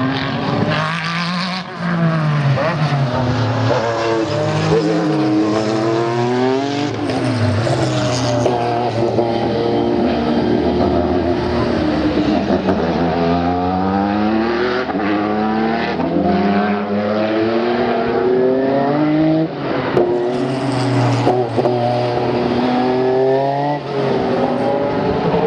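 Racing engines of Group C cars, the Porsche 962's turbocharged flat-six among them, revving and passing. Their pitch sweeps up and down again and again over a steady low engine drone.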